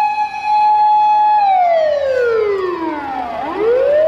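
Fire engine siren wailing: a steady high tone that slides down in pitch for about two seconds, then starts rising again near the end.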